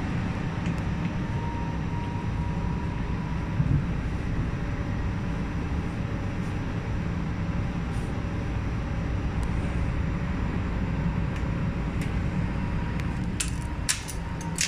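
Metro train running, a steady low rumble with a faint steady whine over it; a few sharp clicks near the end.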